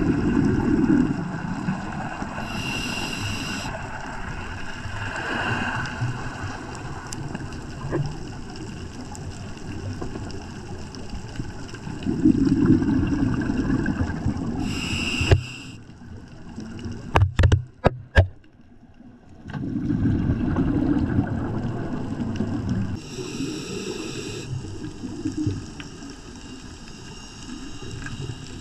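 Scuba diver breathing through a regulator, heard underwater through the camera housing: about three breaths, each a short hiss on the inhale and a longer low bubbling on the exhale. Near the middle it drops quieter for a few seconds, with a handful of sharp clicks.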